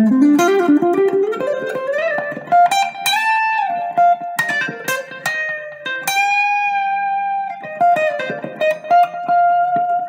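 IYV IJZ-300 semi-hollow electric guitar played plugged in: a quick run of notes climbing in pitch over the first two seconds, then held lead notes with bends and slides between fresh plucks.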